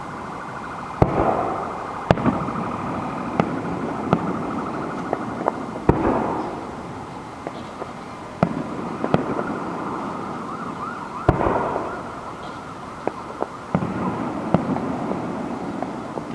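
Aerial fireworks shells bursting: a string of sharp booms about a second apart, a few louder ones followed by a crackling tail, over a continuous background hiss with a wavering high tone.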